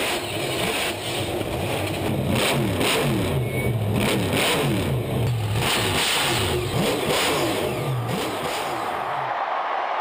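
Grave Digger monster truck's supercharged V8 revving hard, its pitch rising and falling again and again as the throttle is blipped. The engine sound drops away about nine seconds in, leaving a steady rushing noise.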